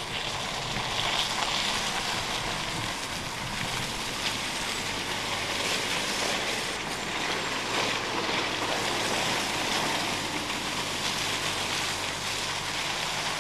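Mini Cooper S Countryman ALL4 with its turbocharged four-cylinder driving slowly across wet, muddy grass: a steady engine hum under a rushing noise of tyres and wind on the microphone.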